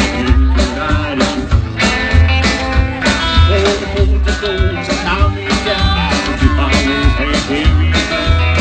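Live rock and roll band playing: strummed acoustic guitar, electric guitar, upright bass and drums, with a steady beat and a heavy bass line.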